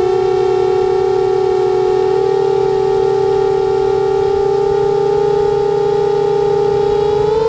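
Motors and propellers of a 7-inch FPV quadcopter whining steadily in flight. The pitch creeps up slowly, then steps up sharply near the end as the motors speed up.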